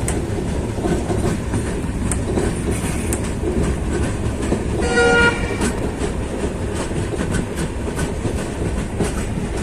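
Moving passenger train heard from inside a coach: the steady, low noise of the wheels running on the rails, with one short horn blast about five seconds in.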